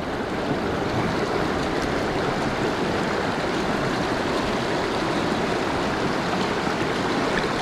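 Fast, shallow freestone river rushing steadily over rocks: pocket water running close around the angler.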